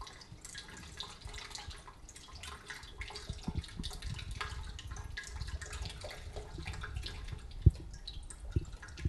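Liquid trickling and dripping through a glass funnel and coil into a glass beaker as two solutions are poured together, with many small scattered clicks. Two dull knocks come near the end, the first the louder.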